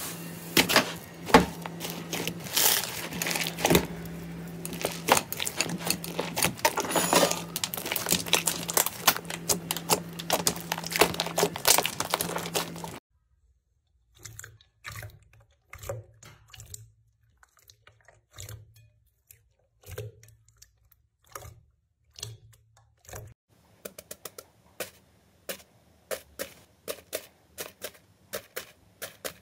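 Hands squishing slime. First a dense run of sticky crackles and pops from thick pink 'milkshake' slime being pressed flat. After a sudden cut about 13 s in come sparse wet squelches as a hand pushes into glossy purple slime, and near the end quick crackling clicks from foam-bead slime being squeezed.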